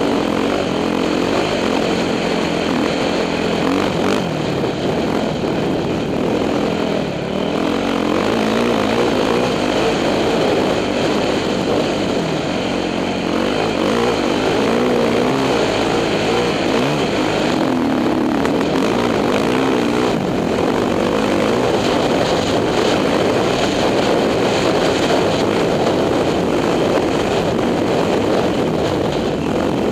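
2006 Yamaha YZ450F's single-cylinder four-stroke engine running under way on a dirt trail. Its pitch keeps rising and falling as the throttle is opened and closed.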